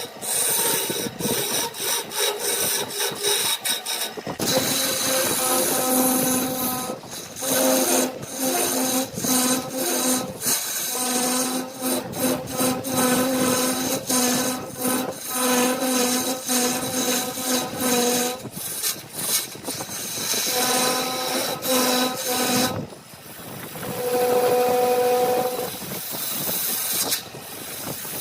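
Wood lathe spinning a workpiece while a turning tool cuts and scrapes it, with a steady hum and scraping noise that break off and resume many times as the tool is lifted and set back on.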